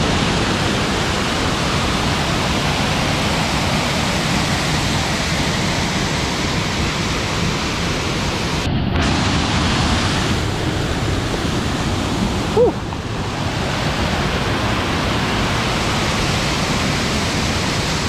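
Sunday Falls, a cascading waterfall, rushing loudly and steadily over rock close by. A single brief squeak cuts through the rush about two-thirds of the way in.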